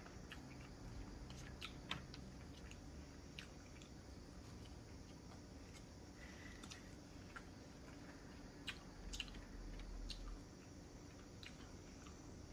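Faint, scattered clicks and ticks of someone eating, chewing cheesy garlic bread.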